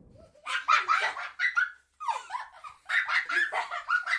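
Edited-in sound effect of short, high-pitched squealing cries in quick succession, in two runs broken by a brief silence near the middle.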